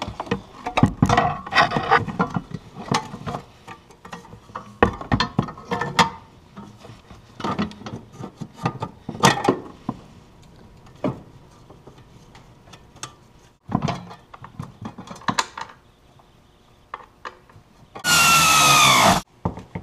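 Irregular clanks, knocks and scraping of metal parts as the battery box is worked back into place in the engine bay of a 2006 Arctic Cat T660 Turbo Trail snowmobile. Near the end comes the loudest sound, a harsh burst of about a second with a tone that falls in pitch.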